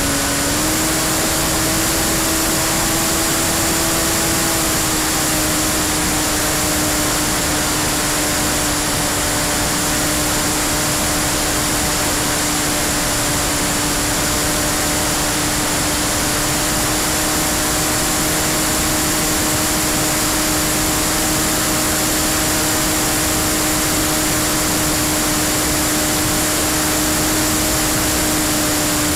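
Electric motor and propeller of a Freewing P-51D radio-control warbird in cruise flight, heard from a camera on the airframe: a steady, droning propeller hum over heavy airflow hiss. The pitch steps up slightly about half a second in as the throttle opens, then eases a little a few seconds later.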